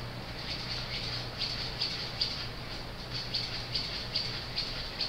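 Stryker bone cement mixing cartridge being worked by hand as bone cement is mixed: the mixing handle rattles in an even rhythm of about two to three strokes a second. A steady low hum runs under it.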